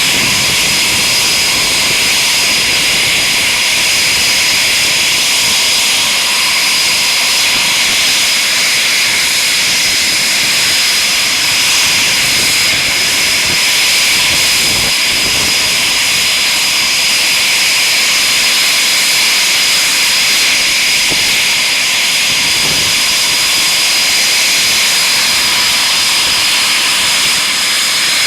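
Eurofighter Typhoon jet engines running at a steady power: a loud, constant rushing roar with a steady high-pitched whine over it.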